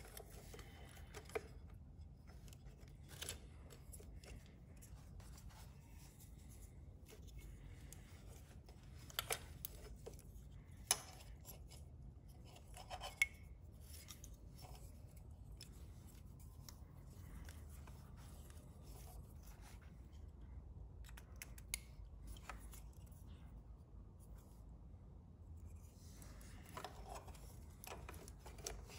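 Plastic wiring-harness connectors being handled and pushed together: scattered sharp clicks and light rustling of wires as a Power Commander V connector is fitted to a fuel injector plug, over a faint low background hum.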